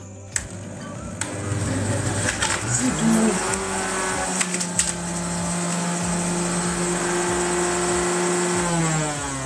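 Electric centrifugal juicer motor running as orange pieces are pushed down its feed chute, with a few sharp clicks and crunching early on. Its hum rises in pitch about three seconds in, holds steady, then falls near the end as the motor slows.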